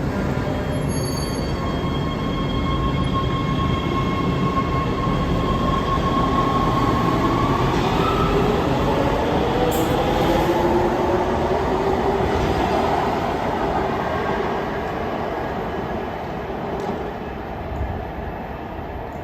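LA Metro B/D Line electric subway train in the station, with steady rumbling noise and a whine from the motors. About halfway through, the whine rises in pitch as the train picks up speed, and the noise then fades as it pulls away.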